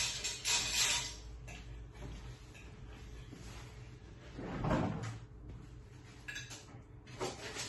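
Mealtime kitchen clatter: cutlery scraping and clinking on plates, and a door being opened and shut about halfway through.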